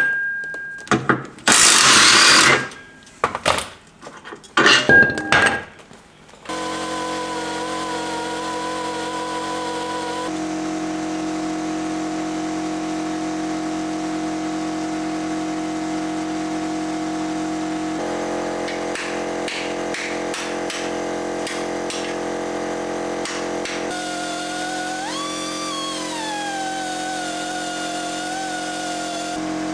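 A few short bursts of a power tool, mixed with clattering metal, during the first six seconds. Then steady background music of sustained droning chords that change every several seconds.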